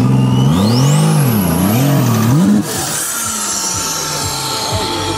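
Modified off-road truck's engine revving hard twice under load as it climbs a steep mud bank, with a high whistle rising alongside the first rev. About two and a half seconds in, the revs drop abruptly to a lower, steady run.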